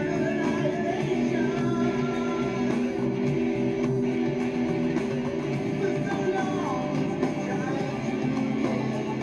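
Rock music led by electric guitar, a steady full-band passage with no lyrics sung.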